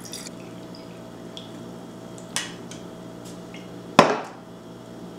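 Water trickling from a glass carafe into a glass measuring cylinder, with a light knock a little past two seconds. About four seconds in there is a sharp, loud knock as the glass carafe is set down on the wooden table.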